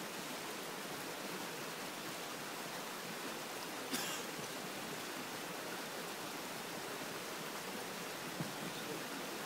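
Steady, even hiss of background noise, with a short rustle about four seconds in.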